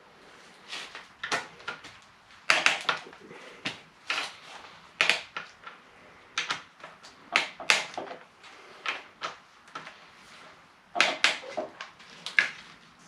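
Irregular clinks and knocks of hand tools and metal engine parts being handled, some single and some in quick runs of two or three.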